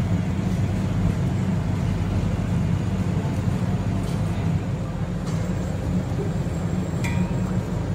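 Steady low rumble of street noise, like passing traffic, with a light clink about seven seconds in.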